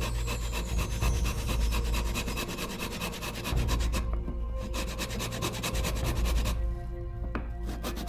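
Japanese pull saw cutting through mahogany by hand in rapid, even strokes, pausing briefly twice, about four and about seven seconds in.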